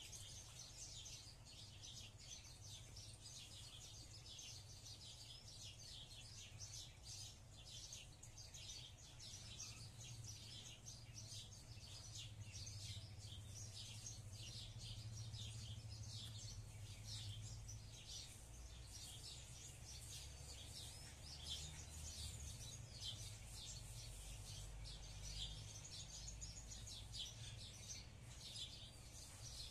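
Faint chorus of small birds chirping rapidly and continuously, over a low steady rumble.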